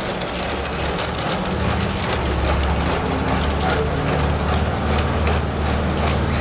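Plastic Playmobil toy train wagons rolling past on the track, their wheels clicking and rattling steadily over a low hum.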